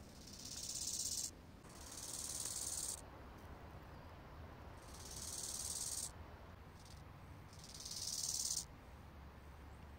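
Short-horned grasshopper stridulating, rubbing its hind legs against its forewings. It gives four high, hiss-like phrases about a second long, each swelling louder and then stopping abruptly.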